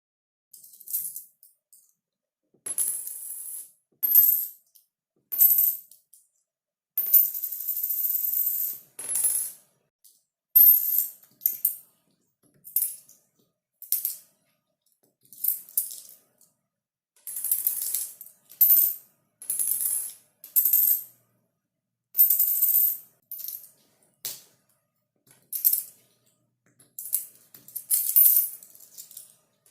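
Coins dropping onto a hard surface, one take after another: about twenty separate drops with short silent gaps between them. Some are brief clinks and some are longer jingles of a second or two, with bright, high metallic ringing.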